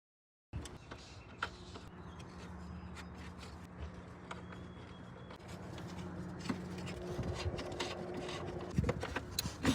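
Hand tools working the 10 mm bolts and plastic trim of an engine bay: faint scrapes and occasional clicks over a steady low hum, with a quick run of ratchet-like clicks near the end.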